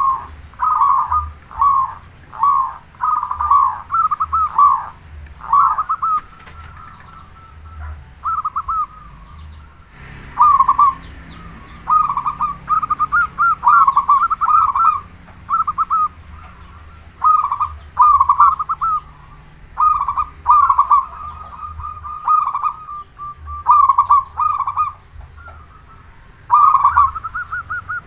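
Zebra dove (perkutut) cooing in quick rolling phrases, one after another with short pauses between them.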